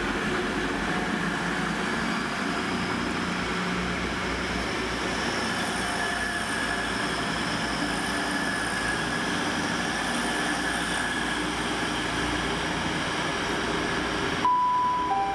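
Class 180 diesel multiple unit running through the station: a steady engine drone and rail noise, with a high whine over it. About fourteen seconds in the sound changes abruptly to a falling two-note station announcement chime.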